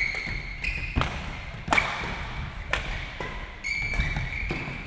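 Badminton rally: rackets strike the shuttlecock with sharp cracks about once a second, about five hits in all, with shoes squeaking on the hall floor between them.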